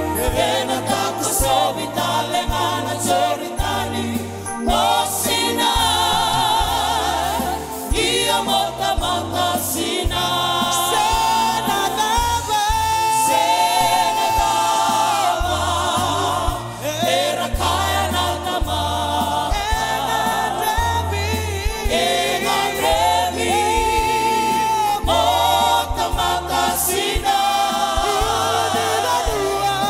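Worship team of several voices singing a Fijian-language gospel song in harmony, backed by a band with a keyboard, bass and drums. The sung lines waver with vibrato over steady, stepping bass notes.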